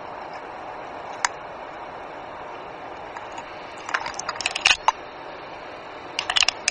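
Twigs and brush crackling and scraping against a helmet camera in dense scrub: scattered sharp clicks, a single one about a second in and clusters about four seconds in and near the end, over a steady hiss.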